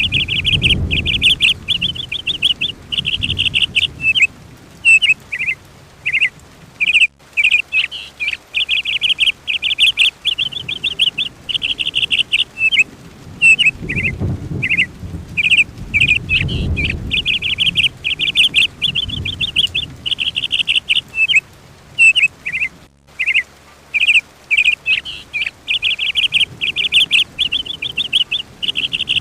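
A songbird singing in rapid trilled phrases, one after another with brief pauses, over a soft low rumble.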